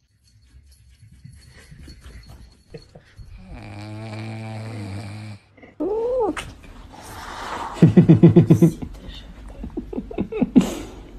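A domestic cat meowing, a rising-then-falling call about six seconds in. Near the middle comes a louder rapid pulsing, about ten pulses a second for roughly a second, and a short steady hum is heard a little before the meow.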